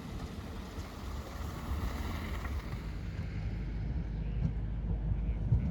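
Spårväg City tram running, a steady low rumble, with a hiss that swells and fades about two seconds in and some wind on the microphone.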